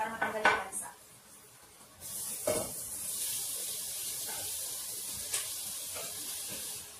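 Diced meat and innards pushed off a plate with a wooden spatula into hot oil with sautéed garlic and onion, starting a steady sizzle about two seconds in. Two knocks of the utensils come during the sizzle.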